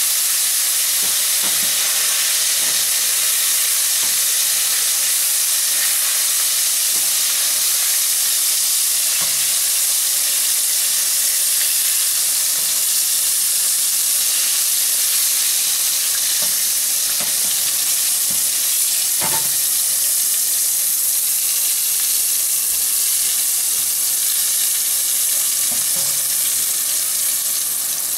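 Small flour-coated fish deep-frying in hot oil in a stainless steel pot: a loud, steady sizzle of bubbling oil. A few light knocks come now and then as a wire skimmer stirs the fish against the pot.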